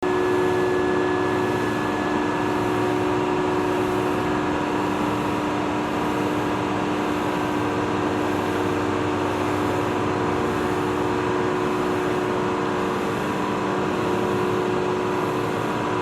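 A fishing boat's engine running at a steady speed, with a constant hum and a few steady tones over the noise of the run.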